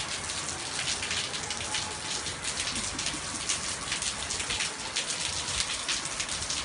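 Steady rain falling, a dense even hiss of many small drop hits.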